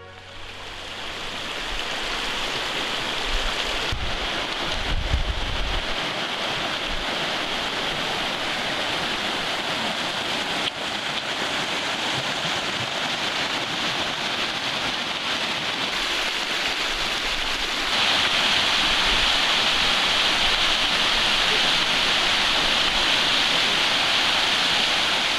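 Mountain stream rushing over rocks: a steady, even rush of water that gets louder about 18 seconds in. A few low rumbles of wind on the microphone come around four to six seconds in.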